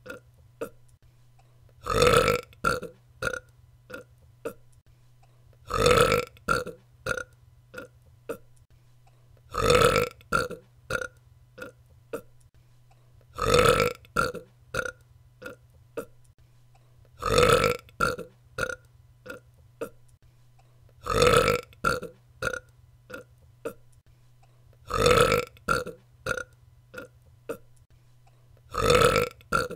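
A woman burping, played over and over: each time one long, loud burp is followed by a string of short, fainter blips, repeating about every four seconds, eight times in all.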